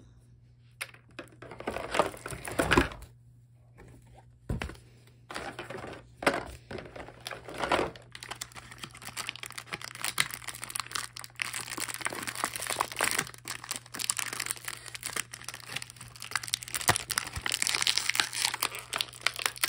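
Thin clear plastic bags of game pieces (dice and plastic miniatures) crinkling as they are handled and squeezed. The crackling comes in scattered bursts at first and runs almost without a break from about five seconds in.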